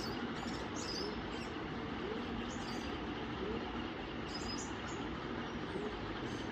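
Vintage Weatherite 140 cm ring-motor ceiling fan running on high speed: a steady rush of air from the blades, which is noisy because the blades are not yet straightened.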